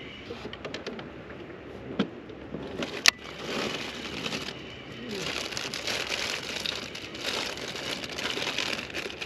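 Plastic food wrapper crinkling and crackling as a snack is opened and handled. Before it, in the first three seconds, come a few small clicks and two sharp knocks.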